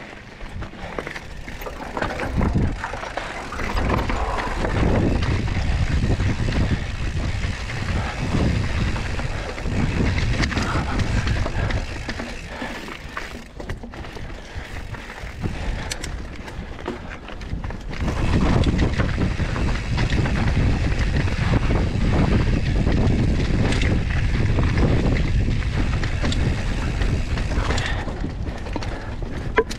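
Mountain bike being ridden over a dirt and rock trail: tyre noise with scattered knocks and rattles over a low rumble of wind buffeting the camera's microphone, easing off through the middle and growing louder again in the last third.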